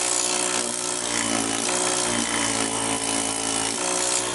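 Built-in air compressor of a LokiThor AW401 jump starter running steadily.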